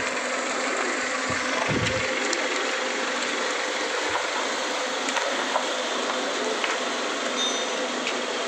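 Steady road and tyre noise with the engine running, heard from inside the cabin of a moving Toyota Alphard, with a few faint ticks. There is no knocking from the freshly repaired electric power steering rack.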